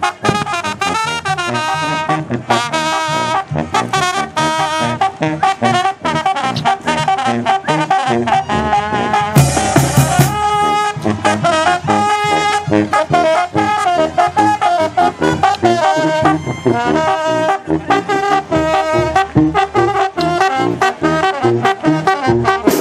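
Marching brass band playing: trumpets and trombones carry the tune over a sousaphone bass line and bass drum, with the low brass louder around ten seconds in.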